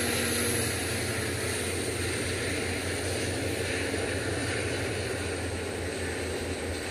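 Passenger train cars rolling past on the rails: a steady rumble and rush of wheel and track noise over a constant low hum, slowly fading.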